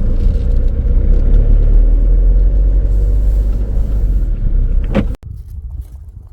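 Ford Transit van driving, heard from inside the cabin: a loud, steady low rumble of engine and road. About five seconds in there is a brief sharp sound, then an abrupt cut to much quieter outdoor ambience.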